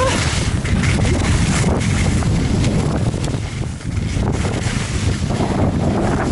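Wind buffeting the microphone: a loud, gusty rumble strongest in the low end.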